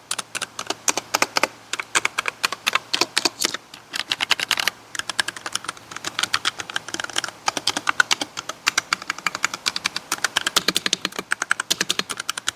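Keychron K6 mechanical keyboard being typed on quickly: a dense, continuous run of key clacks with a brief pause about four seconds in. The typing sound is solid and deep.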